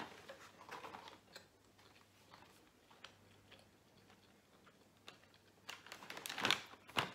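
Cardboard advent calendar handled and turned over in the hands: scattered light taps and scrapes of card, growing denser and louder near the end.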